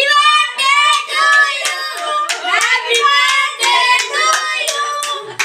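Hand clapping in a steady beat, about two claps a second, with high voices singing a birthday song along with it.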